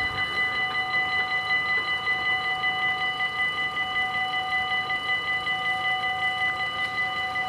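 Dutch level-crossing warning bells ringing fast and steadily with several high, clear tones, the sign that the crossing is closed and a train is coming.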